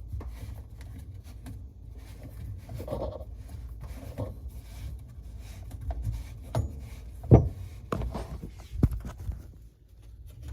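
Hands tightening the garbage disposal's plumbing connections under a sink: rubbing and scattered light clicks of fittings being handled, with a sharp knock about seven seconds in and another about a second and a half later.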